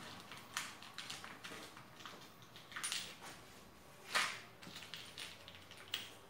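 Faint scattered clicks, light taps and rustles from handling small screws and metal computer-case parts, with a somewhat louder knock about four seconds in.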